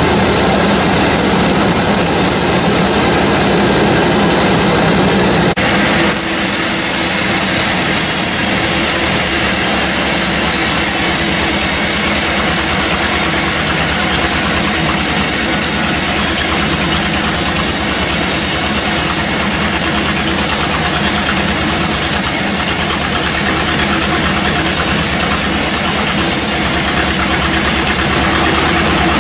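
Sawmill saw and its engine running loudly and steadily while sawing a teak log, with a brief dip and a change in tone about six seconds in.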